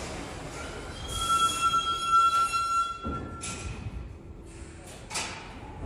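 New York City subway train of R62-type cars, its wheels squealing in one steady high tone for about two and a half seconds, then two short hisses about two seconds apart.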